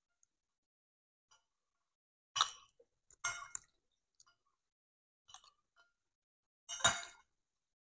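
Metal fork and spoon clinking and scraping against a plate while eating: three louder clinks, about two and a half seconds in, about three and a quarter seconds in, and near the end (the loudest), with a few faint taps between.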